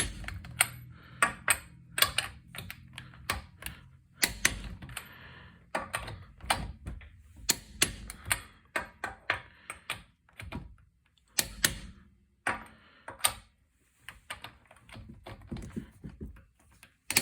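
Irregular sharp metallic clicks and clacks of hand tools and sockets being handled and fitted, some with a brief ring.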